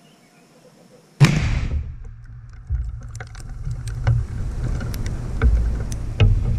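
A field-expedient Bangalore torpedo detonating in a wire obstacle: one sudden sharp blast about a second in, followed by a heavy low rumble with scattered sharp ticks as debris comes down.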